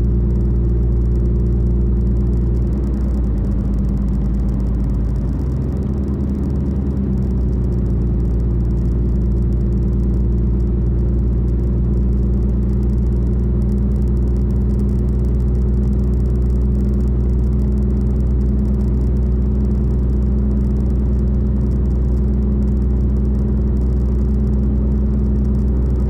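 Car engine and tyre noise heard from inside the cabin while driving along a highway, a steady low drone. A few seconds in the engine note shifts and dips slightly, then holds steady again.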